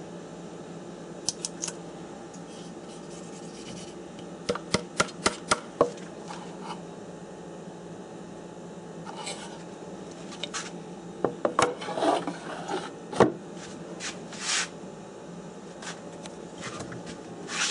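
Hand-working sounds at a toolbox: scattered small clicks and taps, a quick run of about six a little past four seconds in, and short stretches of rubbing and scraping in the second half.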